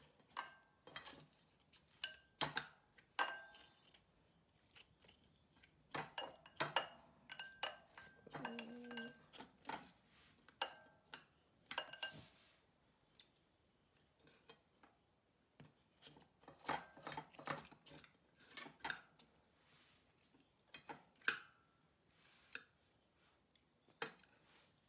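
A metal utensil clicking and scraping against a dish as aloe vera leaf is cut and its gel scooped out: scattered sharp taps, some with a brief ring, with quiet gaps between them.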